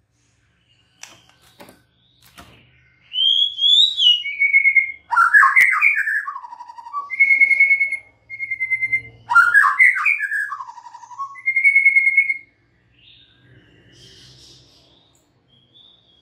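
White-rumped shama (murai batu) singing: clear whistled notes alternating with quick, rich warbled runs that fall in pitch, the same phrase given twice, then a few soft notes near the end.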